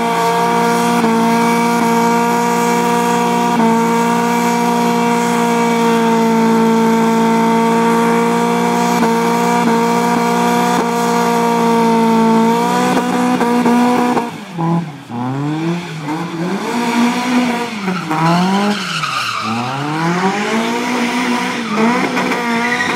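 Toyota Corolla AE86 engine held at steady high revs for about twelve seconds as the rear tyres spin in a smoky burnout. The revs then drop and rise and fall over and over as the car drifts, with tyre squeal.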